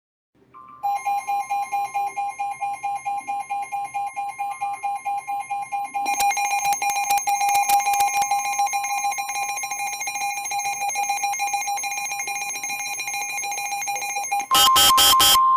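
Emergency alert tones: a buzzing two-tone alarm pulsing about four times a second, harsher and crackling from about six seconds in. Near the end come three short, loud bursts of data noise, then a steady higher single tone begins.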